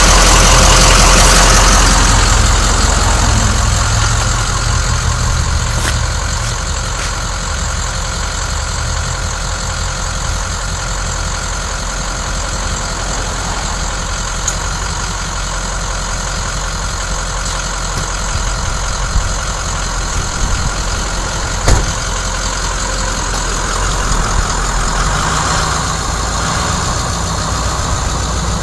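Ford F-550 Super Duty truck's engine idling steadily, louder for the first couple of seconds while heard up close under the truck, then lower and even. A few short clicks, the sharpest about three-quarters of the way through.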